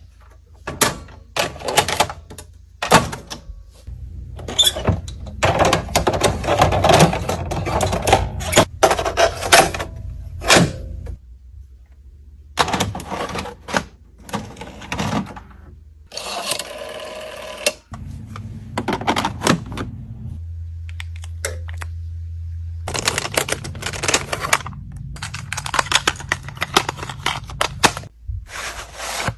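Bursts of rapid mechanical clicking and clattering that stop and start, over a low steady hum.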